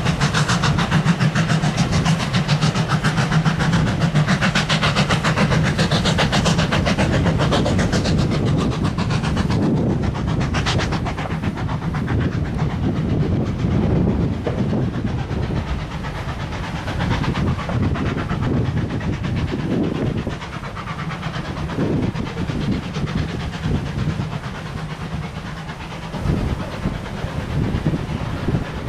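Port Talbot Railway / Great Western 0-6-0ST saddle tank steam locomotive No. 813 working past with a rapid, even beat of exhaust chuffs. Its train of coaches follows, wheels clicking and knocking over the rail joints, the sound easing off as the train draws away.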